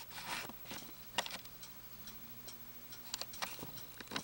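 Faint, irregular light clicks and ticks, a few close together about three seconds in. A faint low hum runs briefly partway through.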